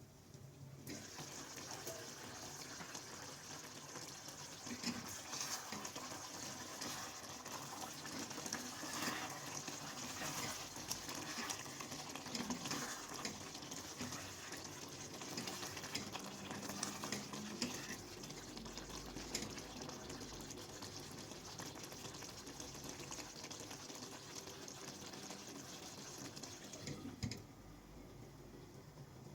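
Water running from a kitchen tap, a steady hiss with scattered clinks, starting about a second in and shut off suddenly near the end.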